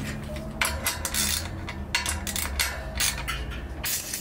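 An irregular string of small metallic clinks and clicks as hand tools and the air chuck are handled at a BMX front wheel, just after the axle nut is tightened with a wrench.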